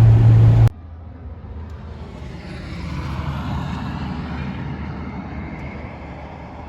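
A motor vehicle's engine runs with a steady low hum and cuts off abruptly under a second in. Quieter road noise follows; it swells around three seconds in and then slowly fades, like a vehicle passing.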